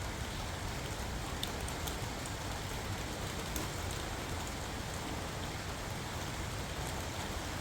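Steady hissing background noise, rain-like, with a few faint ticks.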